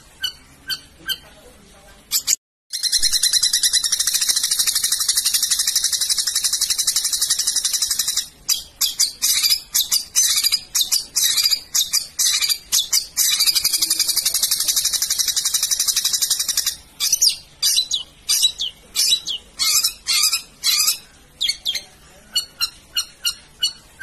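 Long-tailed shrike (cendet) singing: fast, harsh repeated high notes, breaking twice into long stretches of rapid continuous chatter, the shot-like bursts that bird-keepers call 'tembakan'. The sound cuts out briefly near the start.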